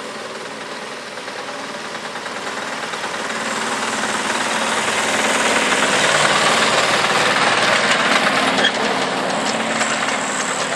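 Miniature railway train passing close by: the small locomotive's engine runs steadily over the noise of the wheels on the rails. It grows louder to a peak about six seconds in as it goes past, then fades.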